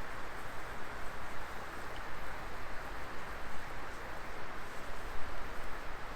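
Wood fire burning in a fire pit, with a steady dense crackle and hiss and a faint pop about two seconds in.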